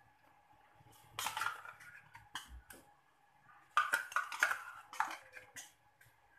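A metal spoon scraping and clinking as lumps of ghee are scooped from their container and knocked into a steel wok, in two bouts of clatter: briefly about a second in, then louder from about four seconds in.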